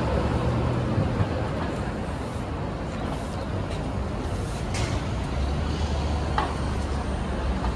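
City street traffic: a steady wash of passing vehicles, with a deeper engine rumble from a large vehicle such as a bus coming in over the last couple of seconds.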